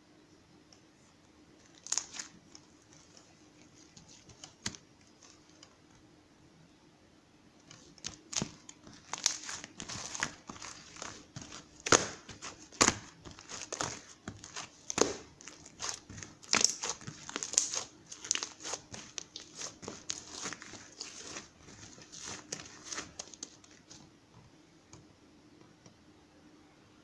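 Crinkling and rustling, as of something crumpled or handled, coming in dense irregular bursts from about eight seconds in until near the end, after a couple of isolated clicks earlier.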